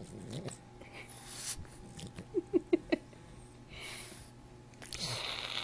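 A small black-and-white bulldog giving four quick, high squeaks in a row about two and a half seconds in, then two noisy breaths near the end.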